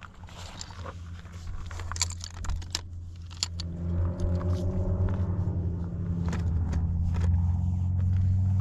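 Clicks, knocks and rustles of a folding camp chair being pulled from its bag and opened, with shuffling steps on gravel. From about four seconds in, a vehicle engine's low, steady rumble grows louder and becomes the loudest sound.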